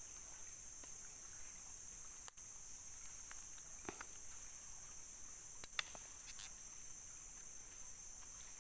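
Steady, high-pitched chorus of forest insects, with a few short sharp clicks, the loudest a little past halfway through.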